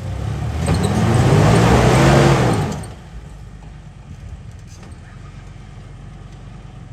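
Jeep Wrangler TJ engine revving hard as its tyres spin and spray loose rock and dirt on a steep rocky climb. After about three seconds it drops back to a lower, steady run.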